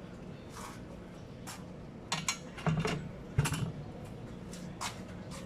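Sharp clicks and knocks of hard metal and plastic parts as an alloy motorcycle top box is handled and fitted onto its mounting plate, several scattered taps with the loudest knocks a little after two seconds in and about three and a half seconds in.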